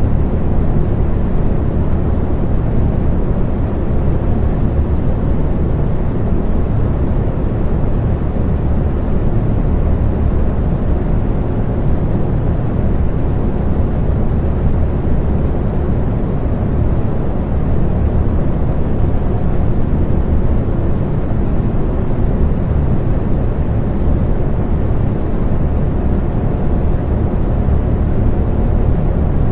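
Electric fan running steadily: a low, even whooshing hum of moving air with a faint motor tone.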